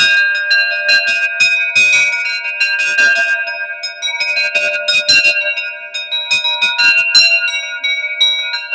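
Several metal bells struck one after another at an irregular pace. Each strike rings on and overlaps the others in a sustained, many-toned wash.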